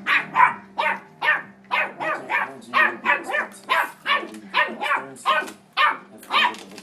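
A puggle barking over and over, short sharp barks a little over two a second.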